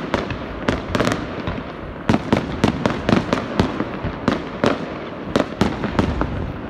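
Fireworks display going off: a quick, irregular run of sharp bangs and pops from bursting shells, several a second.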